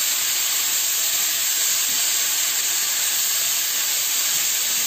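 Chicken, green beans and bacon sizzling steadily in sauce in a hot nonstick frying pan: an even, constant hiss.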